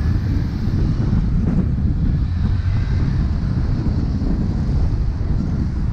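Wind buffeting the microphone of a camera on a moving bicycle, a steady fluttering rumble, with road traffic from the lanes alongside under it.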